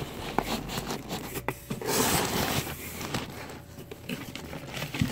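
Rustling and scraping of cardboard and crumpled brown packing paper as a box is slid out of a cardboard shipping carton, loudest about two seconds in, with a few light knocks.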